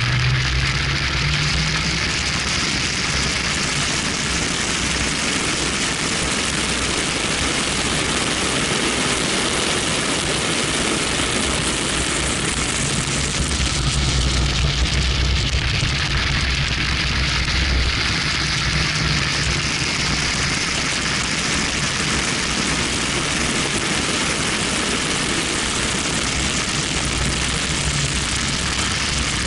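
BMW 1M driven at track speed, heard from a camera mounted outside the car: a loud, steady rush of wind over the microphone over the low, steady note of its twin-turbo straight-six.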